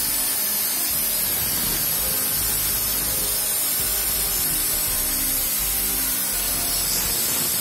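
Makita handheld circular saw running steadily, its blade cutting through a wooden beam.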